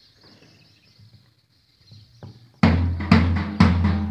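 Marching music with a heavy drum beat starts abruptly about two and a half seconds in, after faint outdoor background. The beats come about twice a second over a steady low tone.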